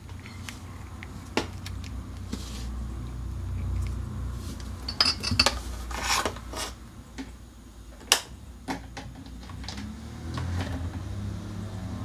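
Alligator-clip test leads clicking and clinking against a plastic washing machine drain pump as they are clipped onto its terminals: a scattering of sharp handling clicks over a steady low hum.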